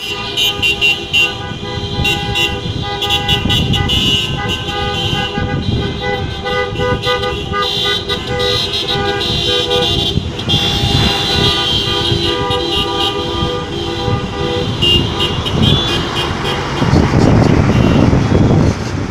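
Several car horns sounding at once, held long and overlapping, as passing cars toot in protest. Near the end a truck passes close by and its road and engine noise rises over the horns.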